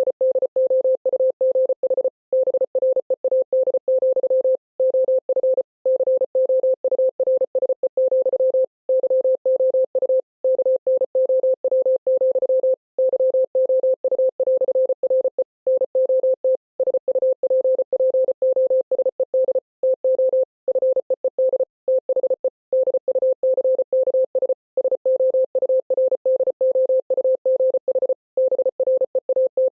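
Morse code played as a single steady mid-pitched beep, keyed rapidly on and off in dots and dashes, with a longer pause every second or two between words.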